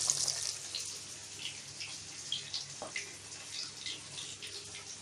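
Coated chicken leg pieces frying in hot oil: a steady sizzle with scattered small pops and crackles. The hiss dies down during the first second.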